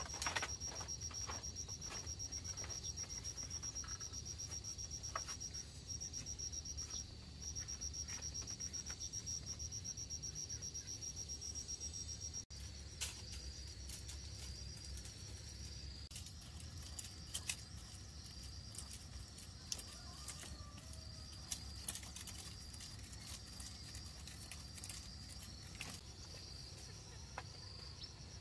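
Insects trilling in one steady high-pitched drone, which after a sudden break about halfway through turns into a pulsing chirp of about one pulse a second. Scattered light clicks and knocks sound over it.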